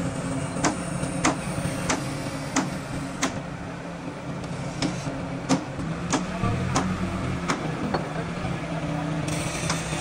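Steady, evenly paced hammer blows on metal, about three every two seconds with a short pause near the middle, over a low steady hum.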